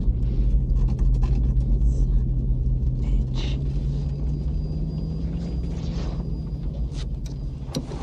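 Deep, steady rumble of a B-52 bomber in flight, heard from inside the cockpit, with a low hum that slowly rises in pitch. A few sharp clicks come near the end.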